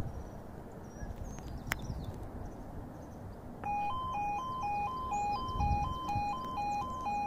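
Level crossing warning sounder starting about halfway through, as the miniature stop light turns from green to red: a two-tone alarm switching between a lower and a higher note about twice a second. It signals that a train is approaching and the crossing must not be used. Before it, only outdoor background noise.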